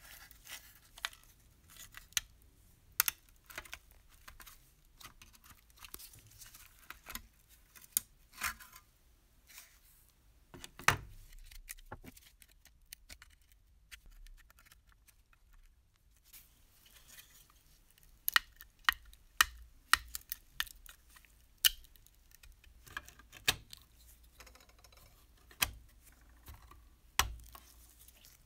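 Rusty tin-plate toy boat being taken apart with fingers and needle-nose pliers: irregular sharp metallic clicks and snaps as tin tabs and parts are pried and bent, with scraping of the rusty sheet metal. A heavier knock comes about eleven seconds in, and the clicks come thick and fast for a few seconds past the middle.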